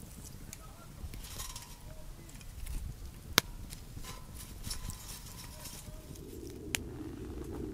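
Small wood fire crackling inside a perforated stainless-steel camp wood stove while kindling sticks are pushed in and knock against it. One sharp crack about three and a half seconds in, a smaller one near the end, and a low steady rushing sound sets in near the end.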